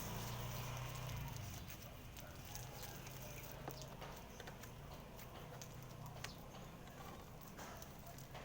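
Birds pecking at food on a rooftop: scattered light taps and clicks at an irregular pace. A low hum fades out about a second in.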